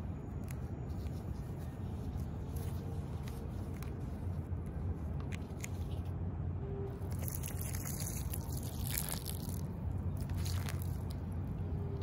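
Small crunching and snapping sounds of flower stems and leaves being handled, with a stretch of rustling a little past the middle, over a steady low city rumble.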